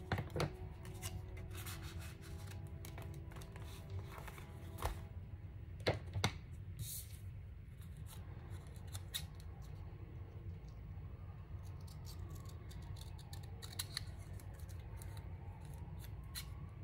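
Scissors snipping paper in a run of short cuts, with a couple of sharper clicks about six seconds in.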